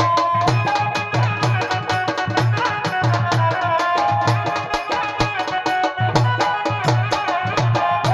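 Music: a rhythmic drum beat with a melody line over it.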